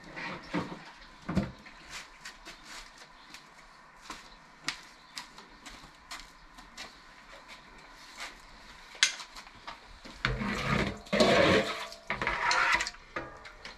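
Water poured out of a bowl, splashing and rushing for about three seconds near the end, after a run of scattered light knocks and clinks.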